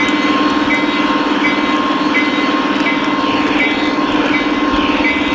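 Three-rail O-gauge model train running on its track, heard from on board: a loud, steady motor hum and wheel noise, with a short high tone repeating about every three-quarters of a second.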